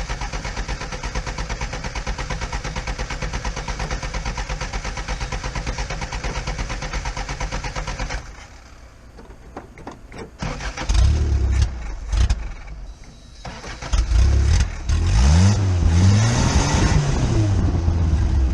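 1977 Toyota Celica's four-cylinder engine cranking on the starter with an even rhythmic pulse for about eight seconds, then catching in uneven bursts and briefly revving up and down near the end. It is struggling to start and run, which the owner puts down to a carburettor problem, most likely a float not working properly.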